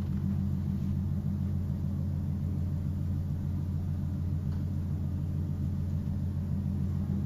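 A steady low hum with several layered pitches, unchanging throughout, with nothing else standing out.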